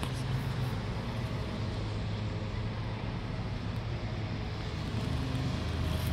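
Steady street traffic noise with a constant low engine hum.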